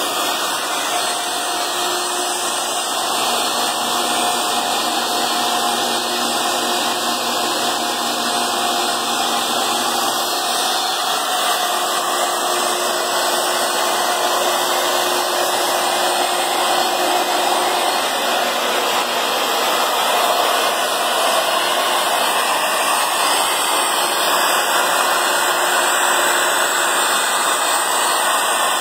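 Industrial machinery running with a steady, airy whooshing noise and a faint hum that fades out about halfway through.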